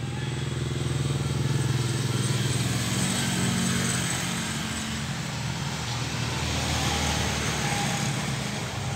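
An engine running steadily with a low, even hum; its pitch lifts slightly for a couple of seconds a few seconds in.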